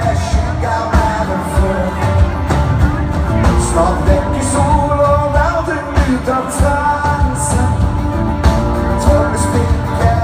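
Live band music heard from the audience in a large hall: a man singing at the microphone over electric guitar, drums and keyboards, with drum and cymbal hits throughout.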